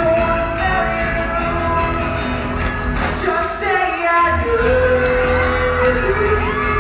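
Live music with a singer performing on stage, heard from among the audience in a large hall.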